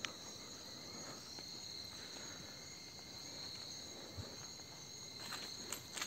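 Night insects, crickets among them, making a steady high-pitched chorus at two pitches, with a few faint clicks near the end.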